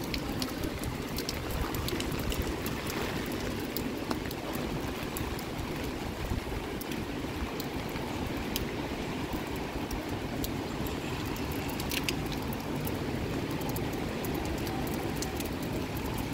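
Steady typhoon rain falling and splashing on wet pavement, with scattered drips.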